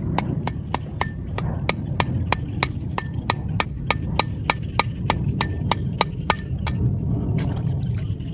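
Fast, even series of sharp knocks, about three a second, like repeated hammering or chopping blows, over a steady low rumble. The knocks stop about seven seconds in.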